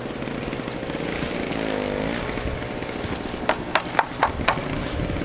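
A small engine running steadily, its pitch dipping briefly and recovering about two seconds in. A quick run of four or five sharp clicks comes just before the end.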